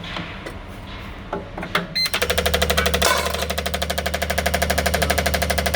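Fuel injectors from a 2015 GMC Denali being pulsed on an injector cleaning and test machine. After a few light clicks, a rapid, even clicking of about ten pulses a second starts about two seconds in, over a steady hum.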